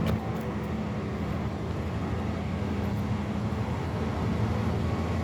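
Freight train passing below, a steady low noise of the train running on the rails with a faint steady hum.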